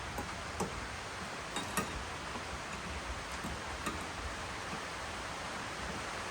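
A few light, irregular metallic clicks and ticks of a hatch lock cylinder and its small metal parts being handled and fitted, over a steady background hiss.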